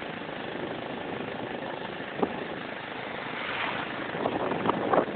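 A motor vehicle running on the road: a steady engine and road noise that swells slightly near the end, with a few short faint clicks.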